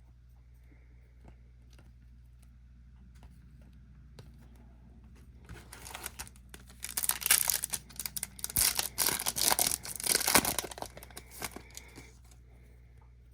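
Foil trading-card pack wrapper being torn open and crinkled: a burst of tearing and crackling that starts about five and a half seconds in and lasts about six seconds.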